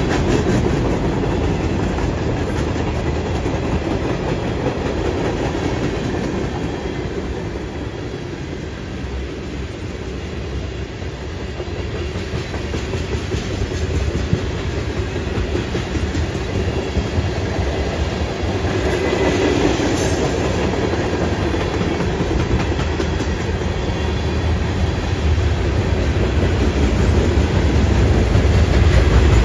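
Freight train cars rolling past: a steady rumble of steel wheels on the rails from a string of boxcars, tank cars and covered hoppers. It eases a little about a third of the way through and grows louder near the end.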